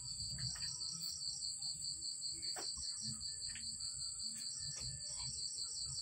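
Crickets chirping: an unbroken run of rapid, even high-pitched pulses, several a second, over a steady higher trill, with faint low rumble and small clicks underneath.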